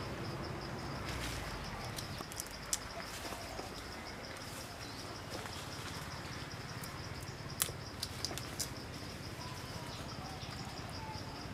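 Forest ambience with a steady, high insect trill that pulses faintly, broken by a few scattered sharp clicks, the loudest about two-thirds of the way through.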